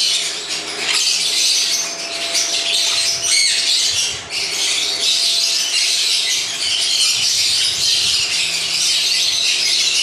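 Many conures squawking and chattering at once, a dense, unbroken din of high-pitched calls.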